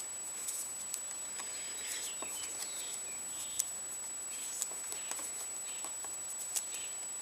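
Faint, scattered light clicks of a wrench and small metal parts being handled while the lock nut under a motorcycle lever pivot is undone.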